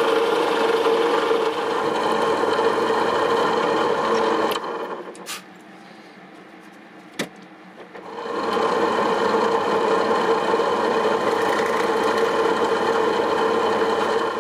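Benchtop drill press running, its bit boring into wooden boards with a steady motor hum. About four and a half seconds in the noise drops away for a few seconds, with a single click, then the drill press runs and cuts again.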